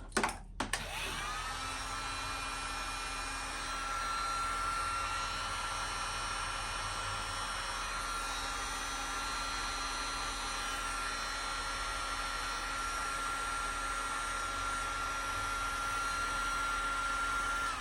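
Electric heat gun switched on with a click, its fan motor whining up to speed and running steadily with a loud rush of hot air to shrink heat-shrink tubing on a wire. It is switched off at the end and the whine falls away.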